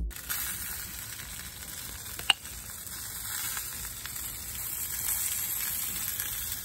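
Pork and pineapple on a vertical al pastor spit sizzling over a hot gas grill as marinade is brushed on: a steady hiss, with one sharp click about two seconds in.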